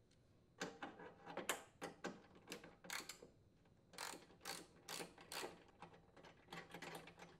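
Socket ratchet with a 10 mm socket clicking through repeated short strokes as it unthreads bolts, about two a second with a brief pause midway.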